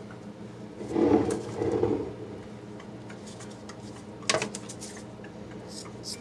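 A plastic measuring pitcher and other utensils are handled and set down on a countertop, with two muffled knocks about a second in and a sharp click past the four-second mark. A few scissor snips come near the end, over a steady low hum.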